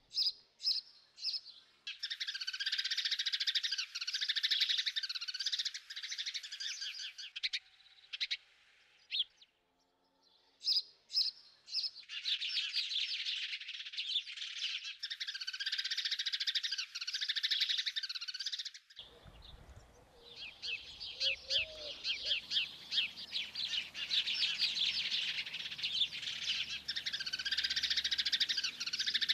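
Songbirds singing in rapid, trilling phrases several seconds long, separated by short pauses.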